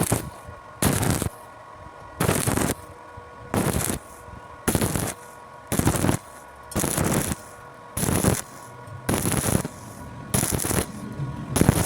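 Stick-welding arc crackling in short bursts of about half a second, roughly once a second, as the arc is struck and broken again and again in a stitch or whip pattern.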